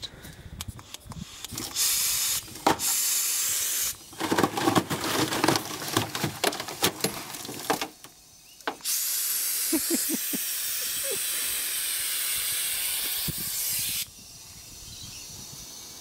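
Compressed air hissing in bursts through a hand valve into a Festo pneumatic ram as it extends, with scattered clicks and knocks in the middle. A loud steady hiss lasting about five seconds cuts off abruptly, leaving a fainter hiss.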